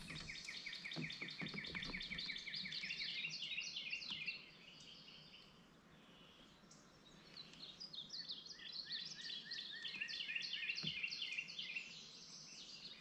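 Rapid runs of high, repeated chirps from wild creatures in the creekside trees: one run at the start lasting about four seconds, a quiet gap, then a second run from about seven seconds in, over faint outdoor ambience.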